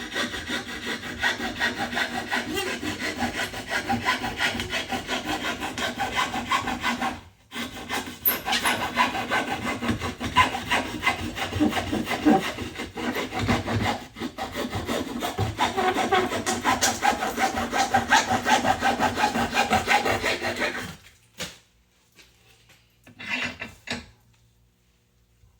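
A hand tool rasping along the edge of a thick sheetrock piece in rapid back-and-forth strokes, trimming and beveling it. There is a short pause about seven seconds in, and the strokes stop about 21 seconds in, followed by a few brief scrapes and knocks.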